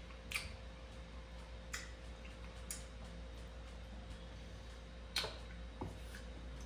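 A handful of scattered sharp mouth clicks and smacks from eating juicy ciruelas (small plums), the loudest a little after five seconds in, over a low steady hum.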